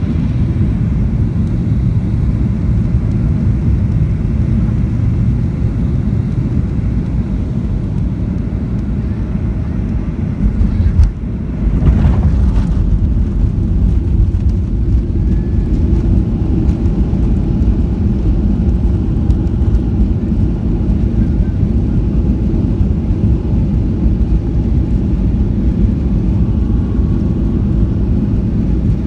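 Steady low rumble inside the cabin of a Boeing 737-800 landing, with a sudden jolt about eleven seconds in and a louder rumble after it, as of touchdown and the landing roll.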